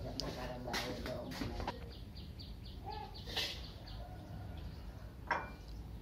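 Metal spatula clinking and scraping against a steel wok while stir-frying fried rice, several sharp clinks spread through the stirring. Faint bird chirps behind.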